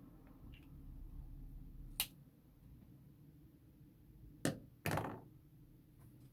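Three sharp knocks over a low steady hum: one about two seconds in, then two close together near the end, the last trailing off briefly.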